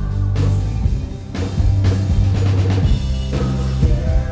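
Rock band playing loudly at a soundcheck: amplified electric guitars over a drum kit.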